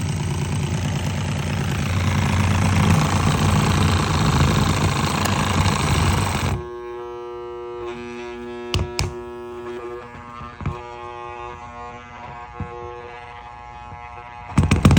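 Induction motor humming loudly with a rattling buzz. It cuts off abruptly about six and a half seconds in, and music follows: sustained tones with sharp percussive hits.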